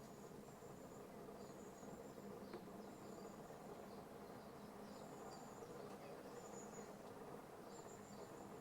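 Near silence: faint room tone with a low steady hum and faint, short, high chirps recurring about once a second.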